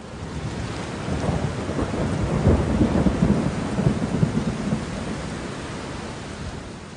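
Rain with a long rumble of thunder that builds over the first two seconds, is loudest around the middle, and slowly dies away.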